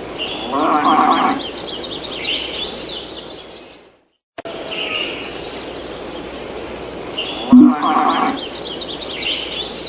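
A farm-ambience sound effect: a cow mooing over birds chirping. It plays twice, with a brief silent break between the two.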